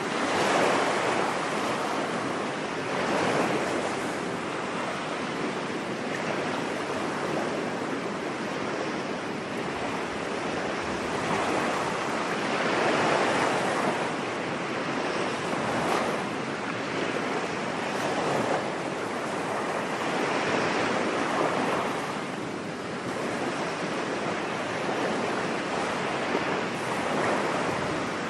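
Ocean waves washing onto a beach: a continuous rush of surf that swells and falls back every few seconds as each wave breaks.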